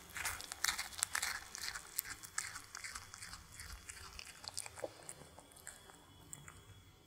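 A cat chewing and biting into a sausage baked in pastry, making many quick crunchy clicks that come thick and fast for about three seconds, then thin out to scattered chews.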